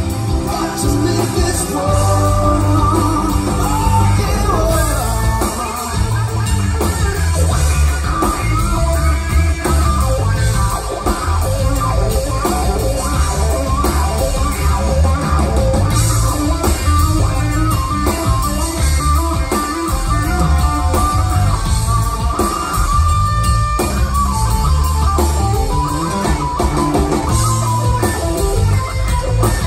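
Live rock band playing, loud and continuous: electric guitar over bass guitar and a drum kit, amplified through the stage PA.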